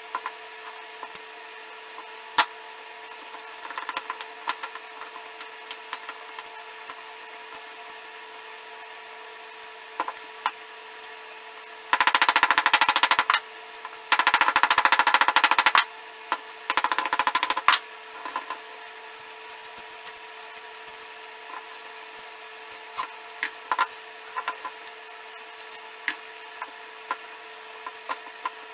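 Hands working a glued-up wooden stave urn on a workbench: scattered light knocks and clicks, with three loud bursts of rapid rattling clicks around the middle, over a faint steady hum.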